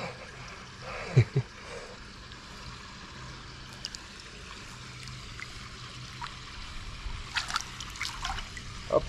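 Shallow water trickling and lapping around a hand holding a large perch in the current, with two brief low bumps about a second in. Near the end a quick run of splashes as the released perch kicks out of the hand and swims off.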